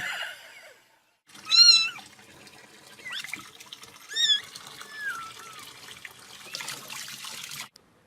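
Cat meowing: a loud high-pitched meow about a second and a half in, then a second one around four seconds and a weaker one near five.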